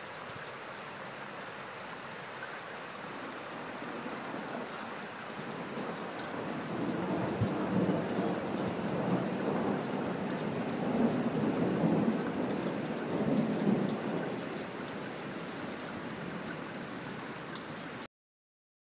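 Thunderstorm wind and rain: a steady hiss that swells with gusty rumbles in the middle, then cuts off suddenly near the end.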